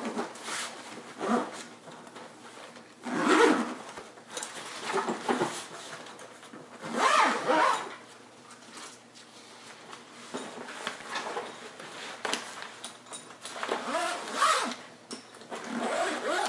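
Zipper on a padded nylon carry bag being pulled closed in several long strokes with pauses between them, along with handling of the fabric.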